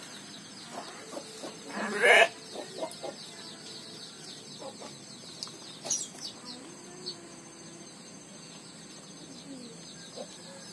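Farmyard chickens clucking, with one short louder call about two seconds in.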